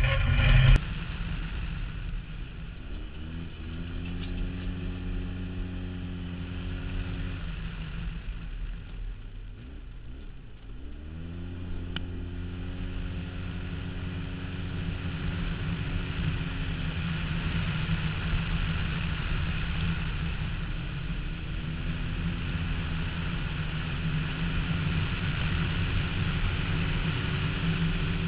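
Polaris RZR S side-by-side's engine running under way, its note climbing and settling three times as the throttle is opened and eased, with a quieter dip between the first two.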